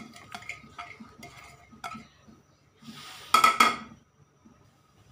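Ladle clinking and knocking against a large metal cooking pot as it stirs laksa broth with torch ginger and lemongrass, with one louder ringing scrape of the ladle on the pot about three seconds in.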